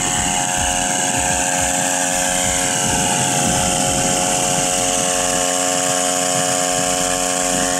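Small engine of a motorized backpack sprayer running steadily at an even speed as it sprays pesticide mist.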